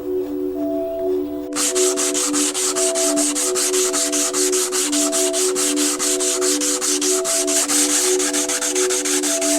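Hand sanding wood: sandpaper rubbed back and forth in quick, even strokes, about four a second, starting about a second and a half in. Soft background music with held notes runs underneath.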